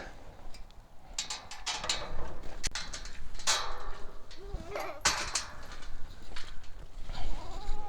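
Irregular knocks and clicks, with a few faint goat bleats near the middle and again near the end.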